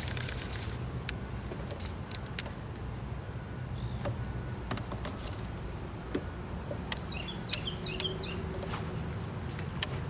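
A bird chirping in a quick run of short rising and falling notes about two-thirds of the way in, over steady low background noise with scattered sharp clicks.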